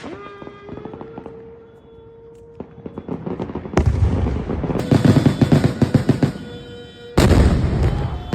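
Fireworks going off: scattered pops about three seconds in, then a loud blast followed by a dense run of rapid bangs and crackling, and another loud blast near the end.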